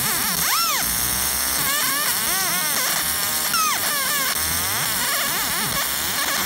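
Galvo laser engraver marking aluminum: a steady buzzing hiss with whistling tones that sweep up and down again and again as it traces the hatch fill.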